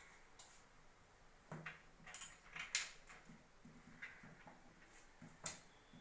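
Faint, scattered clicks and light knocks, about half a dozen, the sharpest near the middle and about five and a half seconds in, over quiet room tone.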